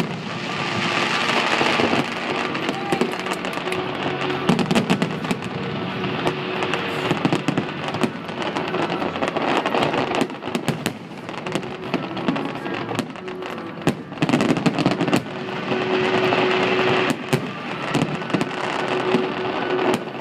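Fireworks barrage: a rapid, unbroken string of bangs and crackling from many shells and ground effects going off at once, with music playing along underneath.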